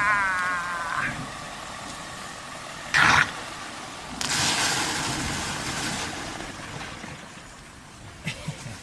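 A short wavering whine that bends up and stops about a second in. Then a single sharp knock about three seconds in, and a rush of splashing water from about four seconds that slowly fades, as water starts moving through a small pico hydro turbine's pipe.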